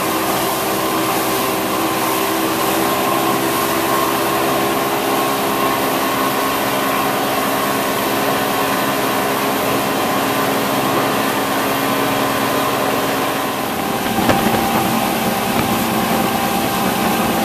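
Motorboat engine running steadily at speed while towing an inner tube, with wind and rushing wake water behind it. The engine note drops a little about fourteen seconds in.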